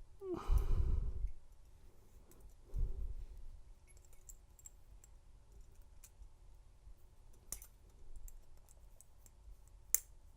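Light metallic clicks of a pick tool working inside a double-locked handcuff's keyhole, a few sharp ones spaced seconds apart. A person sighs about half a second in and breathes out again around three seconds in.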